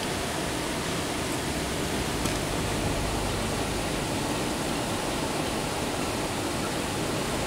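Steady rush of water from a small artificial waterfall spilling over rocks into a pool.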